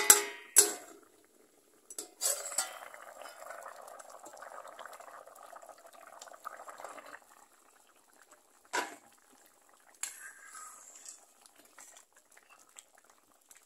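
Fish curry bubbling at a boil in a steel pot, with metal clinks from the steel plate lid against the pot at the start and one sharp clink about nine seconds in.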